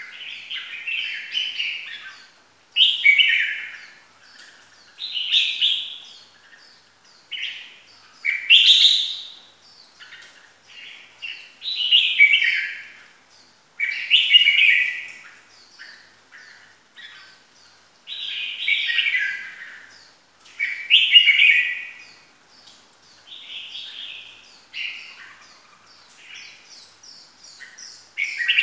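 Red-whiskered bulbul singing: about a dozen short, loud chirping phrases, one every two seconds or so, many falling slightly in pitch.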